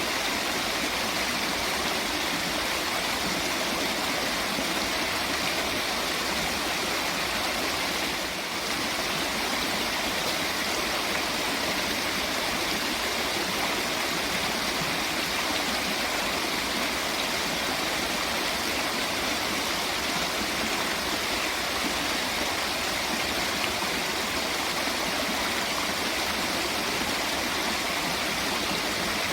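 Steady, continuous rush of running water from a stream or waterfall, an even hiss with no breaks.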